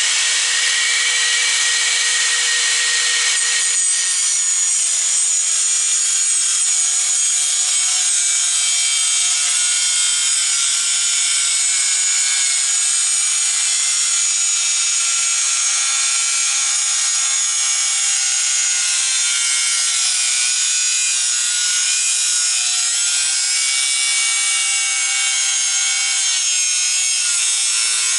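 Electric angle grinder cutting into a metal bracket clamped in a bench vise: a loud, steady whine and grinding. About four seconds in, the motor's pitch drops as the disc bites into the metal, and it stays loaded from then on.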